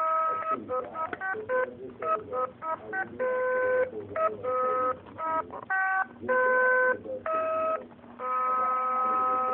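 A Fisher-Price Sing-a-ma-jigs plush toy singing a tune in its electronic voice, a mix of quick short notes and longer held notes, each at a steady pitch.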